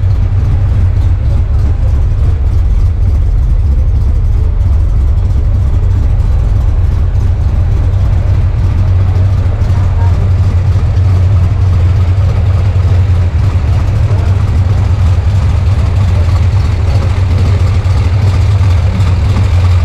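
Chevrolet Opala Comodoro's 4.1-litre inline-six, naturally aspirated and tuned, idling steadily with a loud, low exhaust rumble.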